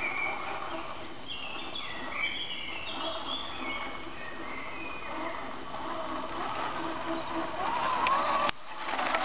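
Birds chirping in woodland. Toward the end comes the rising electric-motor and gear whine of a 1:10-scale GAZ-66 RC crawler truck, getting louder as it drives closer.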